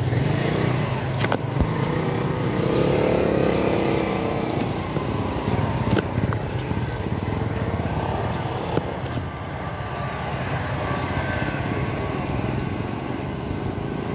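Street traffic with motorcycles going by, a steady engine noise that swells for a couple of seconds near the start.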